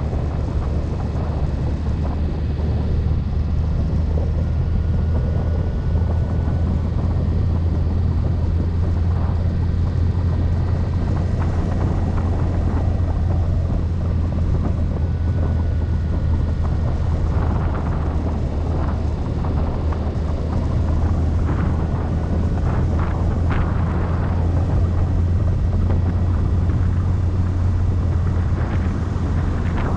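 Steady low rumble of a car driving along a road, with wind noise over it, and a few short sharper sounds about two-thirds of the way through.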